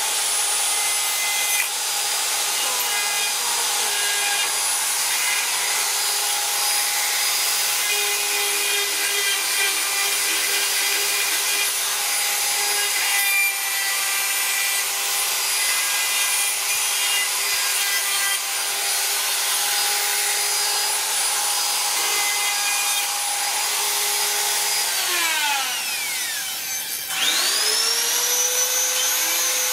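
Handheld electric rotary carving tool grinding into wood: a steady high whine over gritty scraping as the burr cuts the carving. About 25 s in the motor winds down, and a couple of seconds later it spins back up to full speed.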